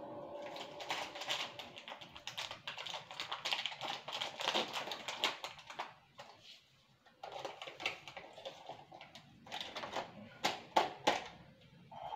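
Hands handling a small item at a kitchen water dispenser: a dense run of rapid clicks and crinkles for about the first half, then a quieter spell, and a few sharp knocks near the end.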